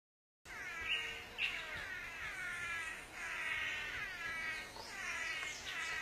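Swallow-tailed manakins calling: a string of overlapping calls, each falling in pitch, repeated every half second to a second. This is the chorus of several males at their cooperative courtship display.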